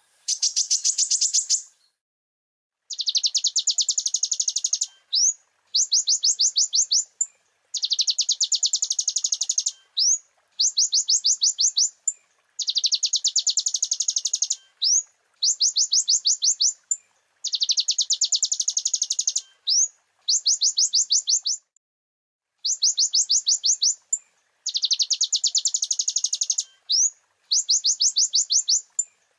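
Konin (kolibri ninja) sunbird singing: rapid high-pitched trills in bursts of one to two seconds, repeated with short pauses, some joined by a short rising note.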